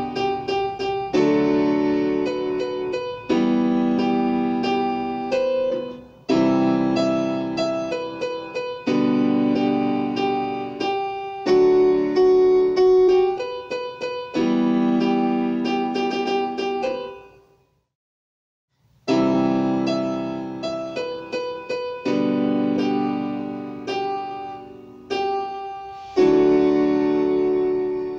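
Portable electronic keyboard played with a piano sound: chords struck about every two seconds, each held and fading away. The sound cuts out completely for about a second and a half some two-thirds of the way through, then the playing resumes.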